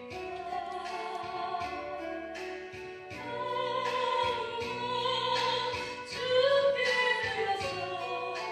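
A woman singing a Korean gospel praise song solo into a microphone, holding long notes, over instrumental accompaniment. The singing swells to its loudest about two-thirds of the way through.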